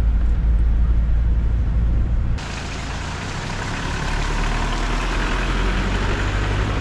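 A moving SUV: a steady low engine and road rumble for the first two seconds or so, then a sudden change to a steady hissing rush across the whole range with only a faint low hum beneath.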